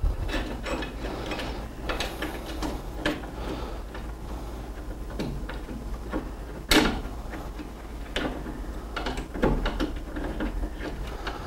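Metal roof-rack parts and hardware being handled by hand: scattered clicks, light knocks and scraping as a bracket is worked over a bolt, with one sharper knock about two-thirds of the way through.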